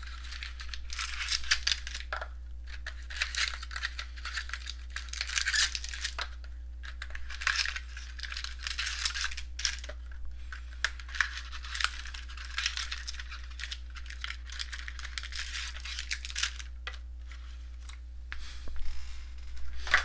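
Crinkling and rustling of trading-card packaging in repeated bursts, with small clicks and taps, as card boxes and packs are opened and handled.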